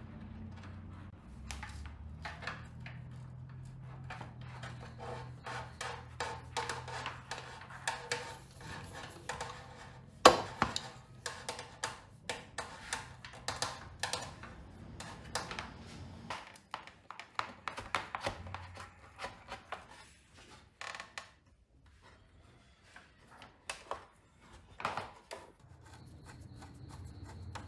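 Hand work at a workbench: a run of taps, clicks and knocks, with one sharp knock about ten seconds in, over a low steady hum that stops about sixteen seconds in.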